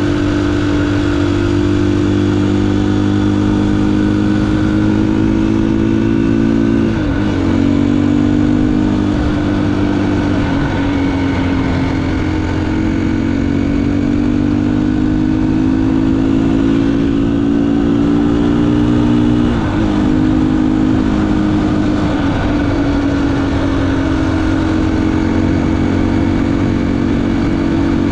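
Engine of a vehicle on a test ride, running steadily at a fairly constant pitch that rises slowly and dips sharply twice, about seven and twenty seconds in.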